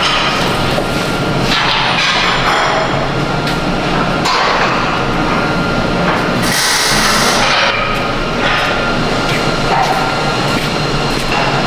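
Steel railing spindles and bars clanking and knocking as they are handled and worked on, over a steady loud fan-like shop hum. A brief loud hiss comes a little past six seconds in.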